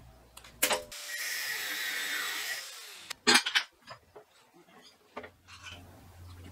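Bent steel round-rod frame scraping across a steel checker-plate firepit tray for about two seconds, with a faint metallic ringing. This is followed by two sharp metal clanks as the rod is knocked into place, then a few light taps.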